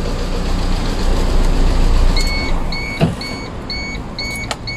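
A Proton Wira's 4G91 twin-cam engine, which has jammed hydraulic lifters, idling and then switched off about two seconds in. A car warning chime then beeps about twice a second, with a single knock about three seconds in and a few sharp clicks near the end.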